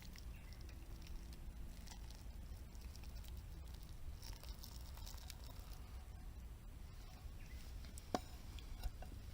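Wood campfire crackling faintly with scattered small pops, and a sharper pop about eight seconds in, over a low steady rumble.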